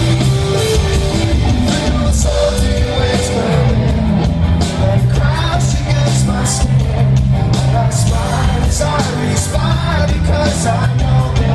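Live rock band playing at full volume: electric guitars, bass and drums with a lead singer, heard loud and steady from within the audience.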